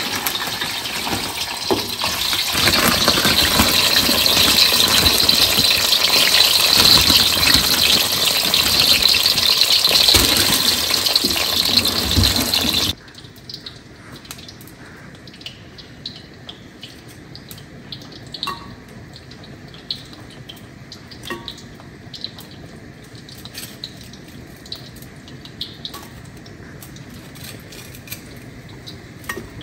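Frozen tater tots sizzling loudly in hot frying oil. The sizzle cuts off abruptly about 13 seconds in. After that comes a much quieter stretch with faint sizzling and a few light clicks of metal tongs.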